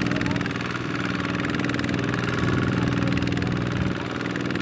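Single-cylinder Kubota diesel engine of a two-wheel mini tractor running steadily.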